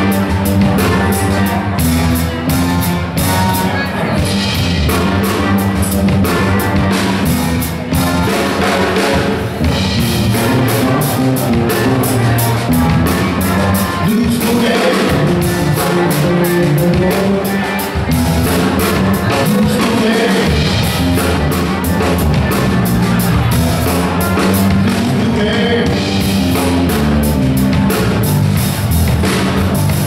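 A funk band playing live: drum kit, bass and electric guitar keep a steady groove, with keyboard and trumpet over it.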